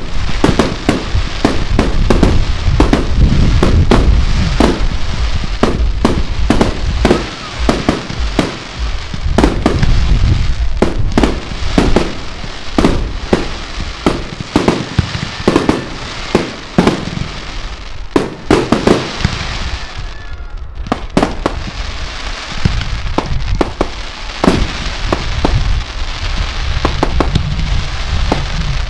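Aerial fireworks display: shells bursting overhead in rapid succession, bang after bang with crackle between, thinning to a short lull about two-thirds of the way through before picking up again.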